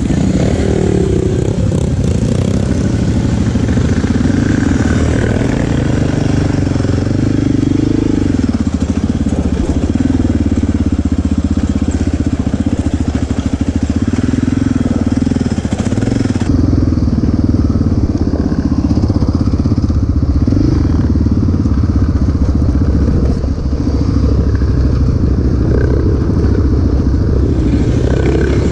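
An ATV engine running as the quad is ridden. The sound is loud and continuous, and the pitch rises and falls with the throttle.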